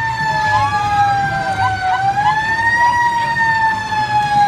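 Emergency-vehicle siren wailing in a slow fall and rise of pitch as the parade's police cars pass, with a few short chirps over it in the first two seconds.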